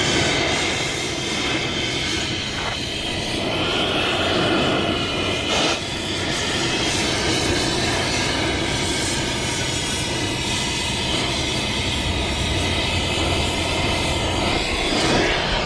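Oxy-acetylene cutting torch flame burning with a steady hiss against steel, heating a wheel bearing race to a red-hot stripe so the race will shrink and drop out of its bore.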